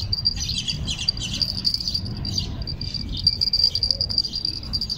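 Insects trilling steadily in one high, unbroken shrill tone, over a continuous low rumble.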